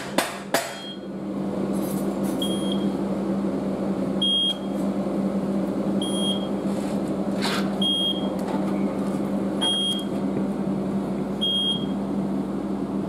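Steady machine hum with a short high beep repeating about every two seconds, from a crane and the vacuum glass lifter holding a large window pane; a sharp click right at the start.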